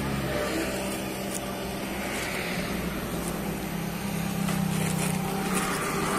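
Motorcycle engine idling with a steady hum that grows a little louder about four and a half seconds in.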